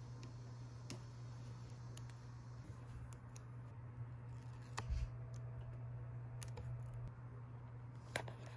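Sticker labels being peeled from a paper backing sheet and pressed onto plastic seasoning bottles: scattered light clicks and rustles, a couple of sharper ones about five and eight seconds in, over a steady low hum.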